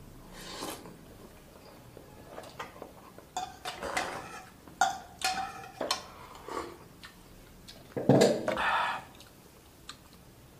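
Utensils clinking and scraping against a bowl and an electric pan during a meal of curry noodle soup: a run of short clicks and clinks, a few with a brief ring. About eight seconds in there is one longer, louder sound.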